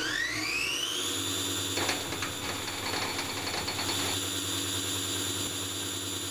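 An electric motor spinning up, its whine rising in pitch over the first second, then running at a steady high speed with a low hum beneath.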